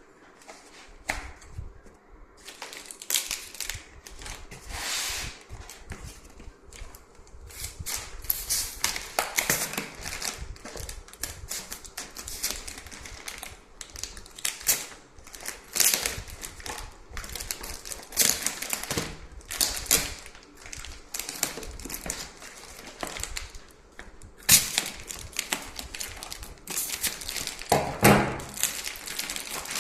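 Packaging being unwrapped by hand: a dense, irregular run of crinkling, rustling and clicking, with a few sharper knocks.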